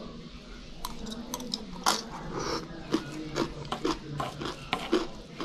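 Close-up chewing and crunching of raw vegetables and rice, a run of irregular crisp crunches starting about a second in.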